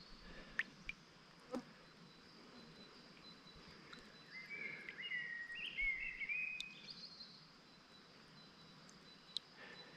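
Faint outdoor ambience: a steady, high insect buzz throughout, with a bird's wavering call in the middle, and a few light clicks.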